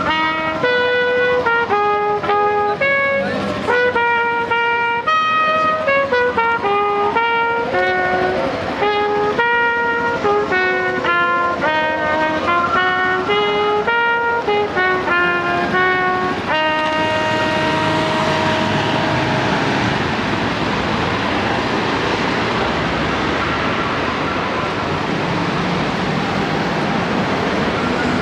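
Brass music, trumpets and trombone, playing a melody that ends about seventeen seconds in on a long held note. A steady rushing noise follows.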